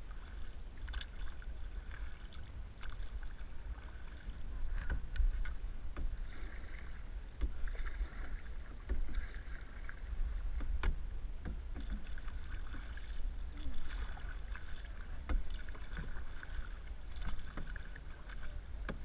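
Canoe being paddled: water lapping and splashing along the hull with the paddle strokes, with scattered small knocks and a steady low rumble.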